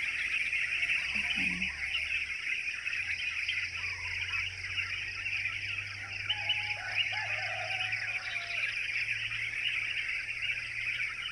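Dense morning chorus of many birds chirping and chattering all at once, very noisy. A few lower, wavering calls stand out about six to eight seconds in.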